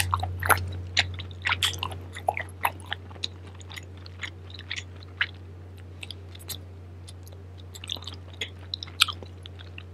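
A person chewing food close to the microphone, with many short smacking mouth clicks. The clicks come thickest in the first few seconds and thin out later. A steady low electrical hum runs underneath.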